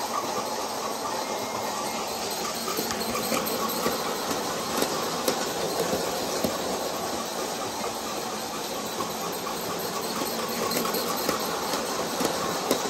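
A Bachmann G-scale Percy model locomotive running under power around a track loop, pulling trucks and coaches. It makes a steady running noise with irregular light clicks from the wheels on the rails.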